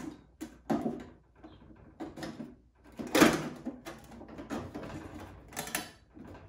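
Sheet-metal vent flange being slid and pressed into place on a microwave's metal back panel: a string of irregular clicks, knocks and scrapes, the loudest about three seconds in.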